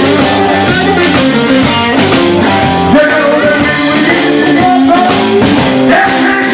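Live electric blues band playing: electric guitars, bass and drum kit, with a singer on a handheld microphone over them.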